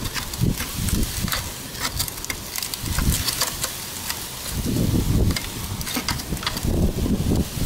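A steel rod prying at the seam of a cut-open scooter muffler: repeated sharp metal clicks and scrapes as the rod works against the shell and end cap, with a few dull knocks.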